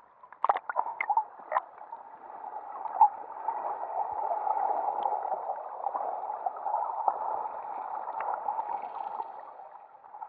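Muffled underwater water noise picked up by a submerged camera: a steady rush that swells through the middle and fades near the end, with a few sharp clicks and knocks in the first two seconds.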